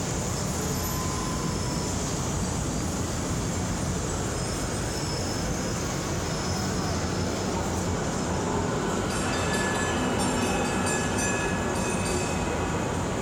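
Model train running on a layout's track: a steady rolling noise, joined about nine seconds in by a light rapid clicking as the locomotive comes near.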